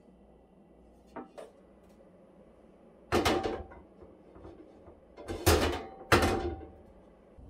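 White steel shelf inserts clanking as one is handled and set on top of another: two light taps about a second in, then three loud metallic knocks with a short ring, at about three, five and a half and six seconds.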